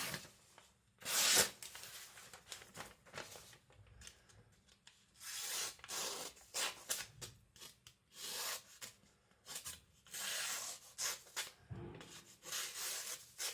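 A freshly sharpened 75Cr1 carbon-steel knife edge slicing through thin paper in a series of irregular cuts, each a short dry rasping hiss: a sharpness test of the new edge.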